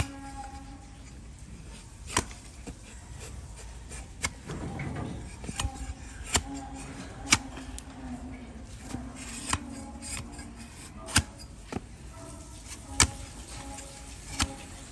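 About ten sharp cutting knocks at uneven intervals, one every one to two seconds, from a hoof-trimming blade chopping into an overgrown donkey hoof. A faint low hum comes and goes beneath them.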